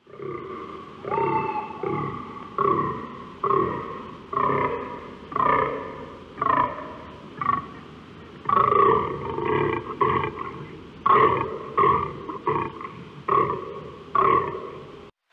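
A male deer's rutting calls: a series of short, deep calls repeated about once a second, each starting suddenly and trailing off, about eighteen in all.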